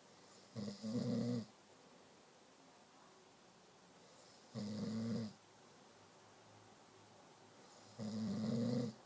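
Snoring: three snores about three and a half seconds apart, each lasting under a second, with quiet breathing between them.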